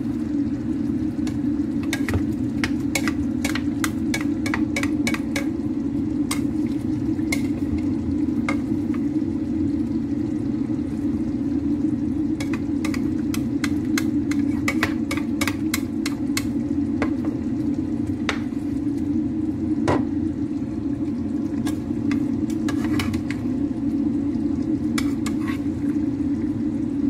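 A spatula stirring and spooning curry sauce over salmon pieces in a non-stick frying pan, knocking and scraping against the pan in runs of sharp clicks, over a steady low rushing noise.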